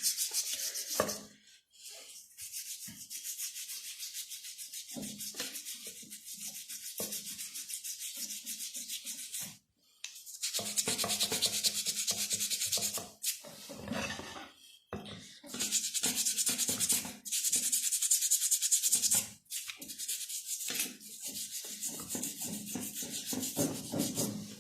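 Fast back-and-forth hand scrubbing on a Honda CG 125 motorcycle's metal rear hub, cleaning and polishing it with cleaner and compound. It goes in several spells with brief pauses between them.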